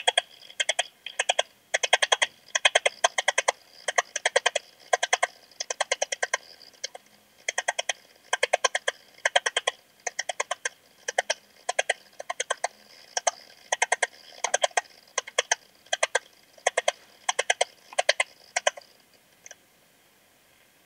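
Eastern stripe-headed cricket (Modicogryllus frontalis) singing, heard through a heterodyne ultrasound detector tuned to 18 kHz. It gives short chirps of a few clicking pulses each, about two a second, and stops a couple of seconds before the end.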